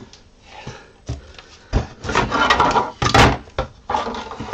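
3D-printed plastic parts knocking and clattering against each other and a cardboard box as they are rummaged through and lifted out: a few scattered knocks, then a busier clatter about two seconds in.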